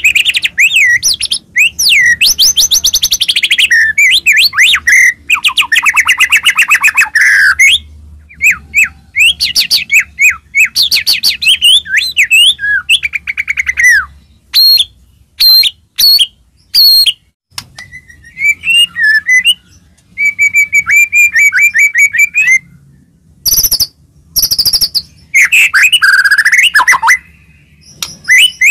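White-rumped shama (murai batu) singing a loud, varied song of whistled phrases, fast note series and trills, with short pauses between phrases.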